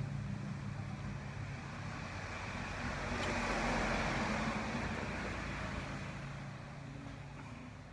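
Road traffic noise: a vehicle going past, its noise swelling to a peak about halfway through and then fading away.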